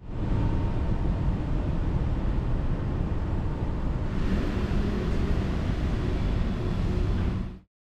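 Steady outdoor background noise: a low rumble with a hiss over it, the hiss growing a little about four seconds in, cutting off suddenly near the end.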